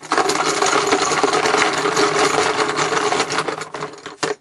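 Rapid, dense rattling clatter of small hard objects, steady for about four seconds, then stopping with two separate clicks near the end.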